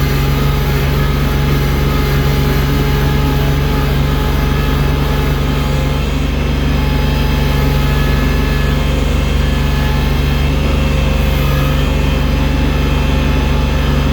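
Loader tractor's engine running steadily at a constant pitch, a deep hum with a few steady whining tones above it.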